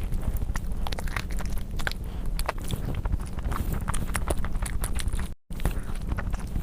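Close-miked eating: chewing with dense, irregular wet mouth clicks and smacks over a low rumble. The sound drops out briefly about five seconds in.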